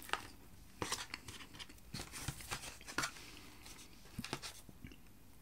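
Fork scraping and tapping in a foil tray of loaded waffle fries and chicken: a string of faint, irregular clicks and scrapes.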